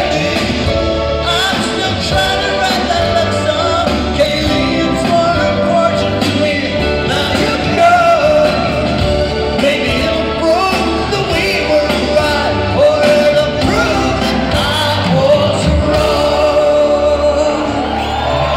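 Rock band playing live with a male lead singer, heard from the audience in a large hall: steady full-band sound with sung vocal lines throughout.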